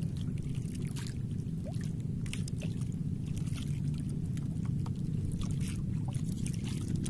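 Outrigger fishing boat's engine idling with a steady low rumble, with a few faint light ticks over it as the longline is handled.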